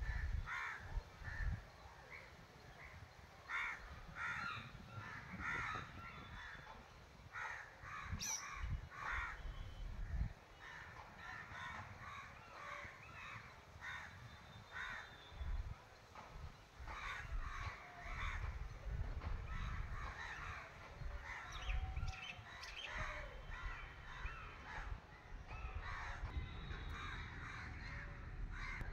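Crows cawing over and over, several calls following one another closely. Irregular low rumbles run underneath.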